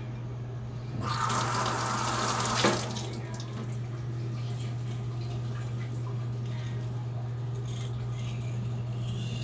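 Water running from a tap for about two seconds, starting about a second in and stopping with a small knock. A steady low hum runs underneath.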